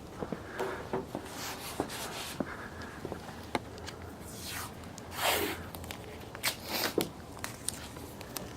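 Tape being pulled off the roll in drawn-out rasping strips, the loudest about five seconds in and twice more near the end, and pressed down onto a car hood, with scattered light taps and clicks.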